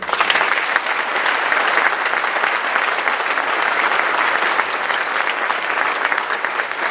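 Audience applauding steadily, a dense clatter of many hands, cut off suddenly near the end.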